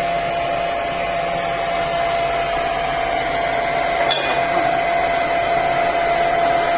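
Hair dryer running steadily, blowing hot air on to defrost a freezer's built-up ice, its motor holding a steady whine; a short click about four seconds in.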